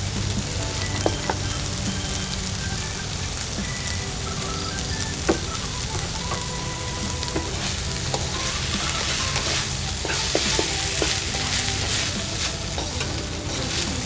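Food sizzling as it is stir-fried in a pan, with a spatula clicking against the pan a few times. The sizzle grows stronger about ten seconds in.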